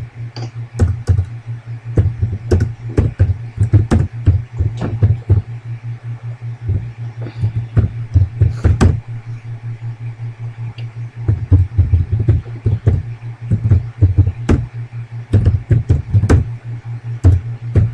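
Computer keyboard keys clicking in irregular runs of typing, slowing for several seconds in the middle, over a steady low hum.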